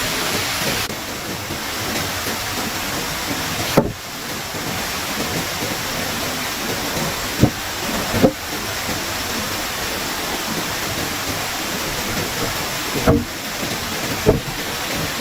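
A steady rushing noise, with several short, sharp knocks scattered through it.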